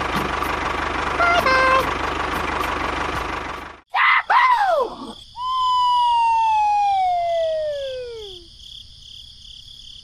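A miniature toy tractor's small motor runs with a steady whirring noise, then cuts off abruptly just before four seconds in. Cartoon whistle sound effects follow: quick swoops up and down, then one long falling whistle that drops in pitch over about three seconds.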